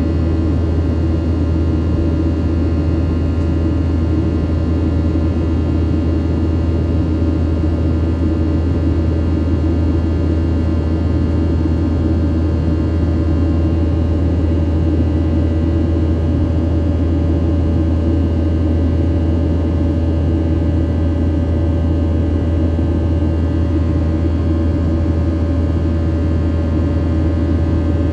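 Steady cabin drone of a Boeing 737-800 in flight, heard from a seat by the wing: a loud low rumble of its CFM56-7B turbofan engines and airflow, with several steady whining tones above it.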